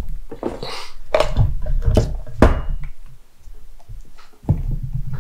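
Unpacking noise: knocks and thunks as a mobile two-way radio unit and its handheld microphone on a coiled cord are lifted out of the box and set down on a cloth, with a short rustle of packaging just under a second in.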